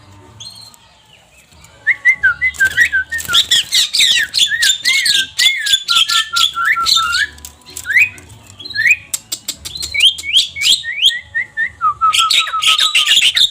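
Javan myna (jalak kebo) singing a fast string of short chirps and whistles, starting about two seconds in, with sharp clicks among them.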